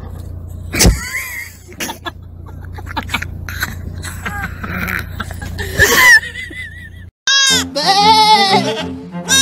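A steady low hum with a knock about a second in and scattered voices and laughter. Then, after a brief break about seven seconds in, a young goat kid bleats several times, high and wavering, over music with a steady bass line.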